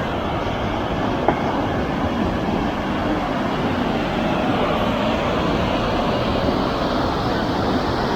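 Steady rush of the Mossman River running over rocks.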